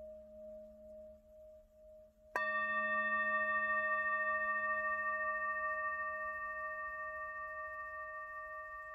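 Tibetan singing bowl: a fading tone pulsing slowly, then the bowl is struck with a mallet about two seconds in. It rings loudly with several overtones and slowly dies away.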